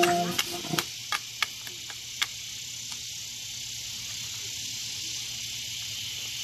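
Steady high-pitched hiss of an evening insect chorus, with a few sharp clicks in the first couple of seconds as music fades out at the start.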